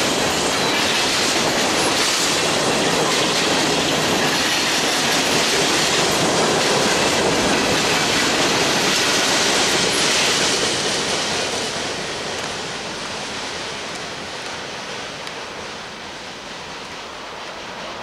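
Norfolk Southern coal train's open hopper cars rolling past at speed, steel wheels running on the rails. The noise starts dropping about ten seconds in as the tail of the train goes by, and fades as it moves away.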